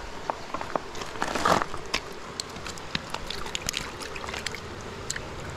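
Shallow river water sloshing and splashing around a hand as a largemouth bass is unhooked and released, over the steady trickle of the stream, with scattered small clicks and taps of handling.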